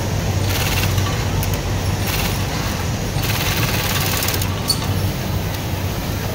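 Dürkopp 697 industrial sewing machine stitching in about three short bursts, the last about a second long, over a steady low hum.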